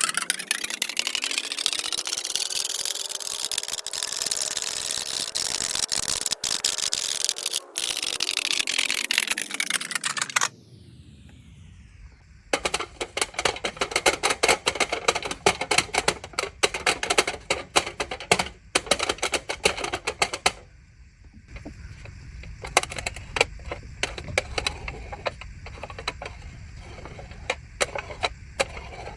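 A loud sweeping hiss that rises and then falls in pitch for about ten seconds, then, after a short lull, fast crackling and clicking like aluminium foil being crinkled, thinning out to scattered crackles after about twenty seconds.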